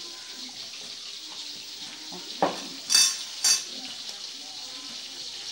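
Steady sizzle of catfish frying in hot oil. A little past halfway come three sharp clinks, the last two ringing like metal on crockery.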